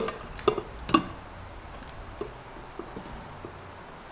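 A rice cooker's inner pot and plastic steaming basket being handled: three light knocks in the first second, then faint scattered ticks.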